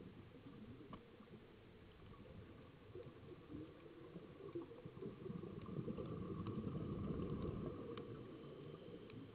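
Muffled underwater sound of scuba divers breathing through regulators: a low bubbling rumble of exhaled air that swells to its loudest about six to eight seconds in, with a few faint clicks.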